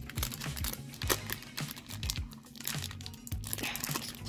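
A plastic hockey card pack wrapper crinkling in the hands in a series of short rustles as it is worked at to open it, over low background music.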